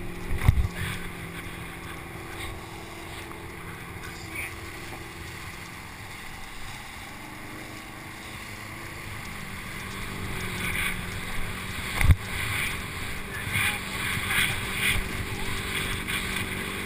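Towboat engine droning steadily behind an inflatable towable tube, over rushing water and wind on the microphone. There are two hard thumps, about half a second in and about twelve seconds in, as the tube bounces across the wake, and louder spray splashing in the second half.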